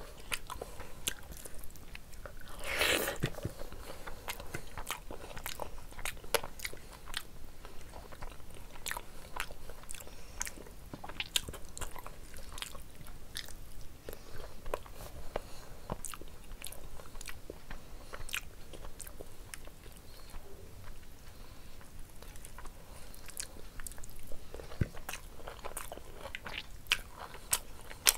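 Close-miked chewing and mouth sounds of a person eating rice and mutton curry by hand: frequent small wet clicks and smacks, with a longer, louder stretch about three seconds in.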